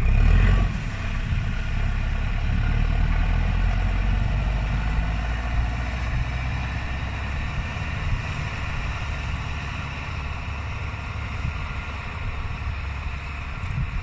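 Case CX80 tractor's diesel engine running steadily, with a brief louder burst right at the start.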